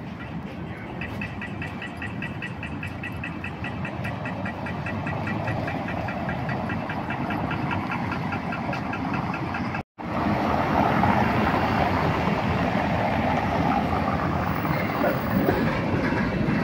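Street traffic with a pedestrian crossing signal beeping rapidly and evenly. After a sudden cut, louder traffic noise from passing vehicles.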